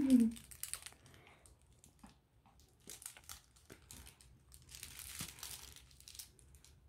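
Crinkling and rustling of a plush dog toy as a small dog bites and tugs at it, in scattered short spells with quiet gaps. A short low-pitched sound comes right at the start.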